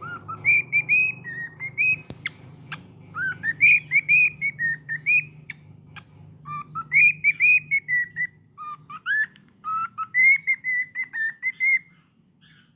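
Cockatiels whistling and chattering in quick runs of short whistled notes and rising glides, with a few sharp clicks in between. The whistling stops near the end.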